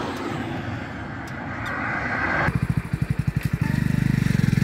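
Rushing wind and road noise heard on a phone microphone from a moving road vehicle. About halfway through the hiss drops away and a heavy, fast-fluttering low buffeting of wind on the microphone takes over.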